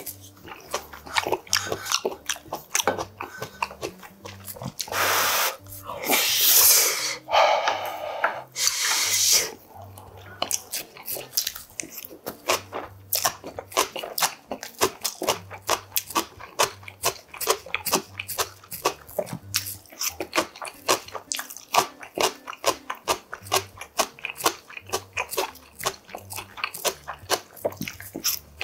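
Close-miked mukbang eating of yukgaejang and rice: a steady run of wet chewing clicks and mouth smacks. Between about five and nine seconds in come three or four loud, drawn-out slurps, each about a second long.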